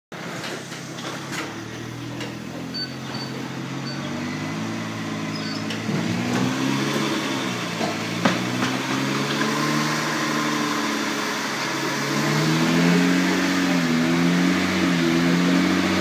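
BMW 335xi driving its wheels in gear while raised off the ground, engine note wavering up and down over a rolling drone from the spinning wheels, getting louder toward the end. The rolling noise is put down to a failing right rear wheel bearing.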